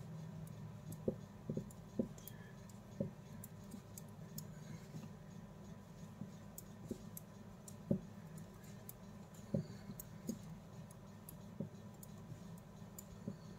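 Metal knitting needles clicking and tapping against each other at irregular intervals while knitting with strips of cloth, over a faint steady hum.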